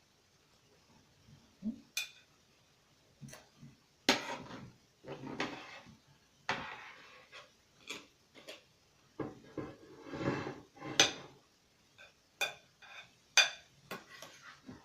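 Serving utensils clinking and scraping against a pot and dishes as seafood pasta is dished up: an irregular run of sharp clinks and short scrapes.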